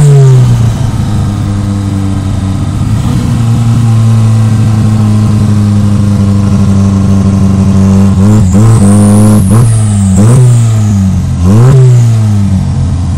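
Turbocharged Ford Fiesta engine with a carburettor turbo setup, holding a steady note, then revving up and down a few times about eight seconds in, with a high turbo whistle rising and falling over the revs.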